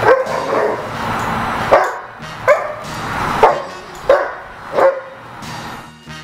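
A dog barking excitedly in play, about six short, sharp barks spaced less than a second apart.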